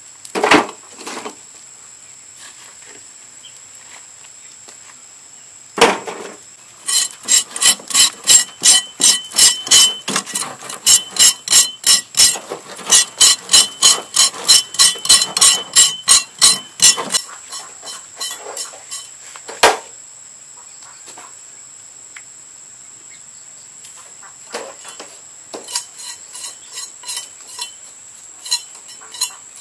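A knife blade scraping the singed hair and charred skin off buffalo legs, in quick, even strokes of about three a second for some ten seconds. A few single knocks come before and after, and lighter scraping starts again near the end.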